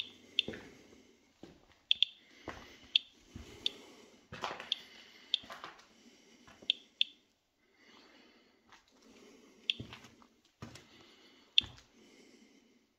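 Footsteps crunching over grit and debris on a littered floor, irregular steps with sharp cracks and crackles and short pauses between them.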